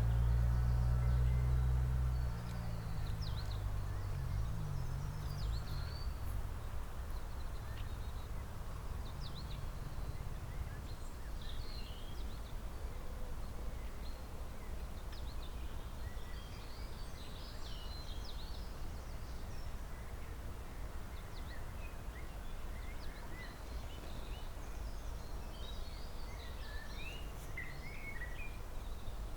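Wild birds chirping in short, high calls scattered through, thickest near the end, over a steady low rumble of background noise. A low engine drone, the loudest sound, fades out in the first two or three seconds.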